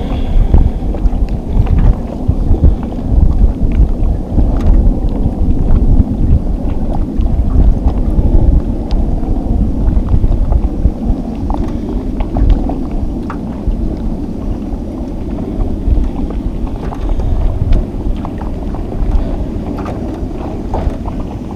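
Wind buffeting the camera microphone in an uneven, gusting rumble, with faint scattered ticks from the rocking boat and the chop.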